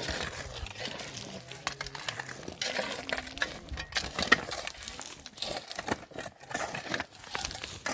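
Irregular small clicks, knocks and rustling, as of things being handled, with faint voices in the background.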